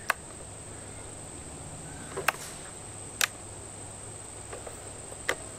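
Outdoor ambience with a steady high insect drone, broken by four short, sharp clicks spread through.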